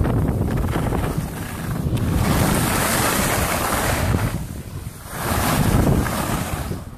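Wind buffeting the microphone and snow hissing and scraping beneath a rider sliding down a groomed ski piste. It dips briefly about four and a half seconds in, comes back loud, and drops near the end as the rider comes to a stop.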